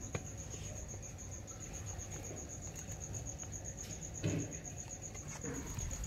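A cricket chirping steadily in the background, a high, evenly pulsed sound of about five pulses a second. Plastic fish bags are handled over it, with brief rustles and a thump about four seconds in.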